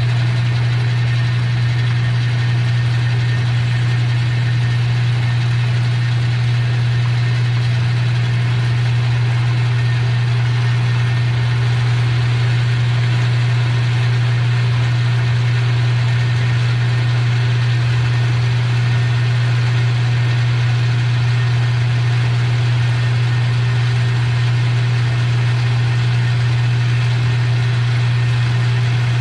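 Metal lathe running steadily with a strong low hum while it turns a section of a hinge pin down to size.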